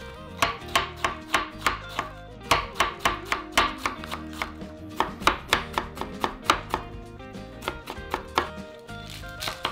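Chef's knife mincing cabbage on a wooden cutting board: rapid, regular knife strikes against the board, about four a second, with a brief pause about seven seconds in. Soft background music underneath.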